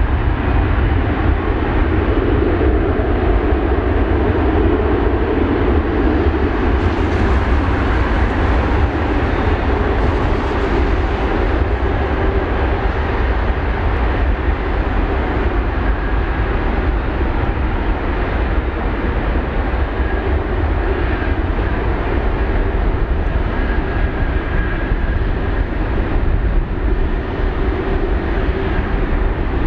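Jet airliner engines running at high thrust: a steady, loud roar with deep rumble.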